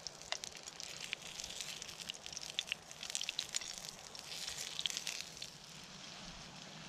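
Campfire coals crackling and popping under pans of vegetables, with a soft sizzle of food cooking. The pops stop about five and a half seconds in, leaving a steady soft hiss.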